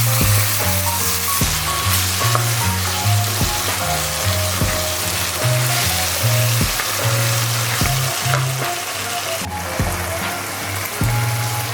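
Vegetables and pasta sizzling while being stir-fried in a pan, a steady hissing. Background music with a stepping bass line and a beat about once a second plays over it.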